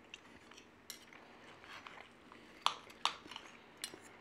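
Knife and fork clinking and scraping on a plate while cutting through a potato farl topped with fried egg. Scattered light clinks come first, then three sharper clinks in the second half.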